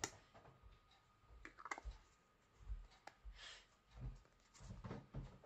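Faint clicks and taps of a small plastic acrylic-powder pot and its lid being handled, with a brief rustle past the middle and soft bumps near the end.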